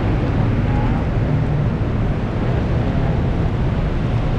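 Heavy rain falling steadily, as an even noise with a low rumble underneath.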